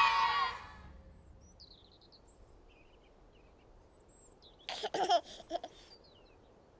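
A baby giggling in a short burst about five seconds in, over faint birdsong chirps. At the very start, the singing and cheering of a church crowd fades out.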